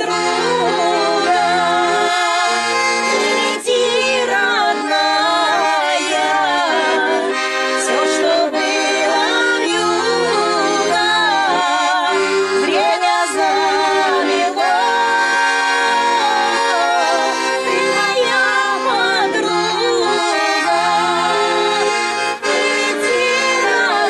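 Piano accordion playing a folk song, with steady chords and alternating low bass notes, while a woman sings along in full voice with a wavering vibrato.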